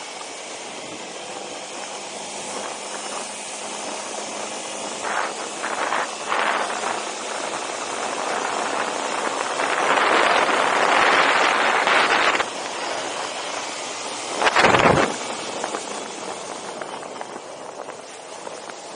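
Wind rushing over the microphone of a moving ATV, a steady hiss with the quad's engine faint beneath it. The rush swells louder for a couple of seconds about ten seconds in, and a short loud buffet hits about fourteen and a half seconds in.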